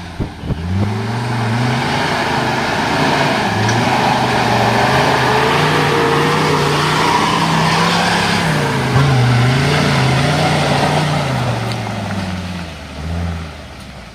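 Mercedes OM602 five-cylinder diesel in a SsangYong Rexton working off road, revs climbing about a second in, holding and wavering up and down, then easing off near the end.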